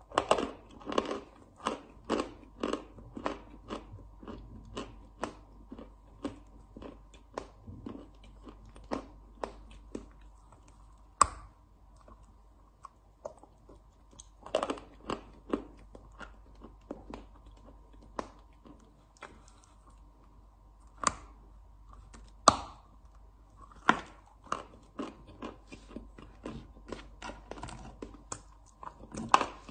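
Lumps of chalk being bitten and chewed: a dry, crunching run of chews, two or three a second, broken by a few sharper, louder bites.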